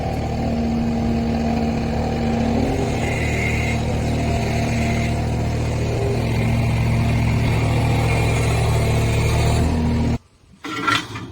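Skid steer loader engine running steadily under load. It cuts off abruptly about ten seconds in, and a brief quieter noise follows near the end.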